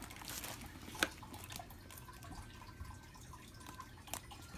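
Quiet handling of cardboard packaging and plastic-bagged parts: a sharp click about a second in and a few soft ticks over a faint background hum.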